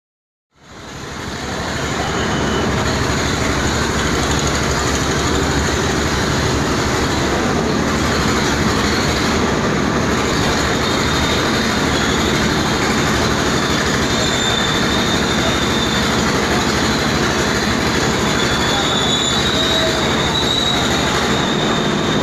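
KRL electric commuter train running past along the platform: a loud, steady rumble of steel wheels on rail that fades in about half a second in, with thin high wheel squeals now and then.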